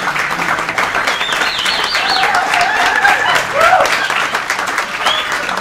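Theatre audience applauding, a dense steady clapping, with cheering voices rising and falling in pitch over it.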